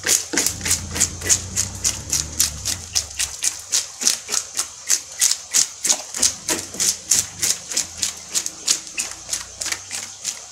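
A homemade fish scaler, a small brush studded with nails, rasping over the side of a large tilapia and scraping off its scales in quick, even strokes, about four a second.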